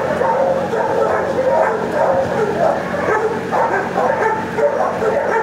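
Shelter dogs in neighbouring kennels barking and yipping without a break, many overlapping barks at a steady loud level.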